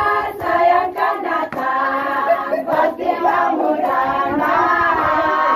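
A group of female voices singing a song together, with held and gliding notes.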